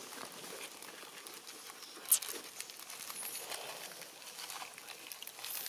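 Light rustling and pattering of long-tailed macaques moving over leaf-strewn ground, with one sharp click about two seconds in.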